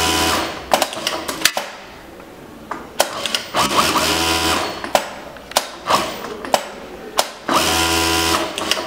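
A Juki DDL-8700 single-needle lockstitch industrial sewing machine stitching in short bursts of about a second each. One burst stops just after the start, a second comes about three and a half seconds in, and a third comes near the end. Sharp clicks fall in the pauses between the bursts.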